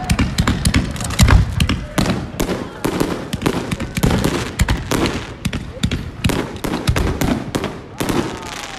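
Aerial fireworks bursting overhead in a rapid, dense series of bangs and crackles.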